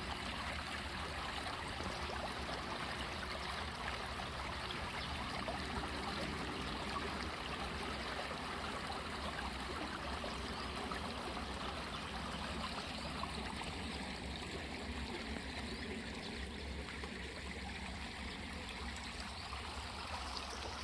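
Shallow stream flowing over a pebble bed and rippling around a few stones, a steady rush of running water.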